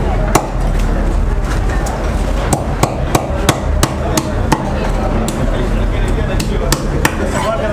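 Knife chopping through a croaker (mushka fish) being cut up: about a dozen sharp chops, with a quick run of about three a second between two and a half and four and a half seconds in, over a steady low background rumble.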